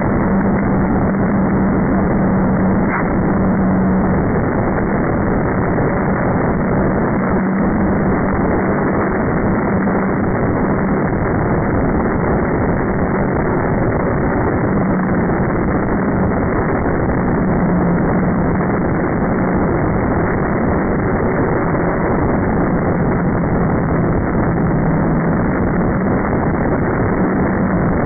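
Hum of a Slow Stick RC model airplane's small electric motor and propeller, its pitch wavering and fading in and out, over a steady rushing noise.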